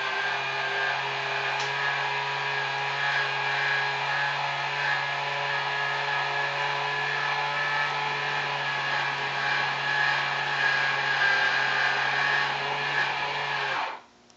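Lionel 24111 operating swing bridge's electric motor drive running with a steady whine as the bridge span rotates, cutting off suddenly near the end when the span comes to rest.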